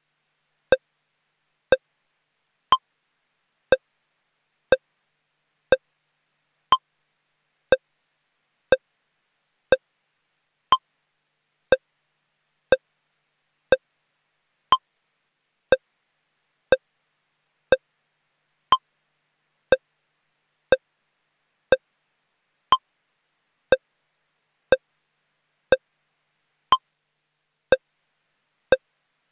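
Short electronic pips, one every second, with every fourth pip higher in pitch: a looping timing tone played under a broadcast holding slate, with silence between the pips.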